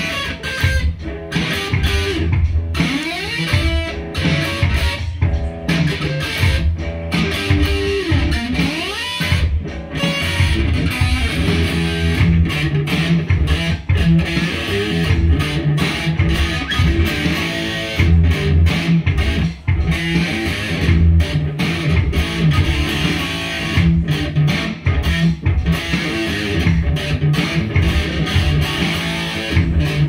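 Electric guitar played through an amplifier: continuous riffing with a few sliding pitch glides about two to three seconds in and again around eight or nine seconds in, over a strong low end.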